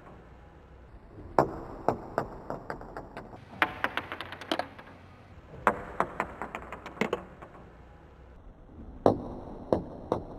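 Dice thrown onto a hard surface four times: each throw a sharp click followed by a quick run of smaller clicks as the dice bounce and settle.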